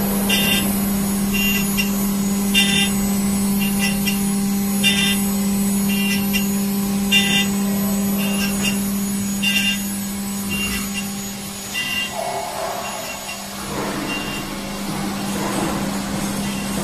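CNC engraving and milling machine running, its spindle giving a steady hum while the cutter mills a metal workpiece. A higher-pitched cutting noise comes and goes about every two seconds, stopping about twelve seconds in.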